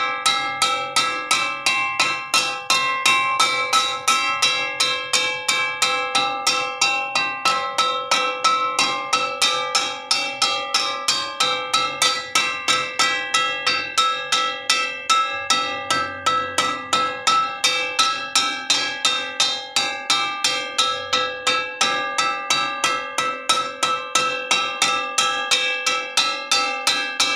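Metal wok (wajan) struck repeatedly at a steady, quick pace of about three to four hits a second, each blow ringing out like a bell.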